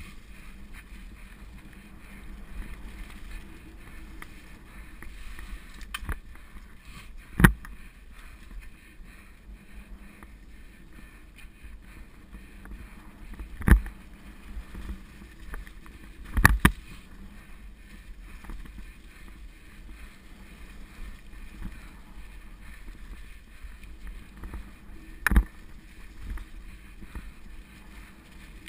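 Mountain bike riding fast over a leaf-covered forest singletrack, heard through a GoPro: a steady low rumble and rattle of tyres and frame over the ground, broken by a few sharp knocks as the bike jolts over bumps.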